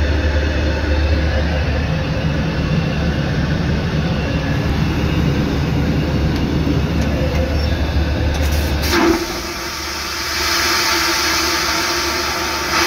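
Airliner cabin drone in the lavatory. About nine seconds in, the vacuum toilet's flush valve opens with a click and a loud rushing whoosh of air follows. The whoosh swells and then cuts off sharply as the valve shuts.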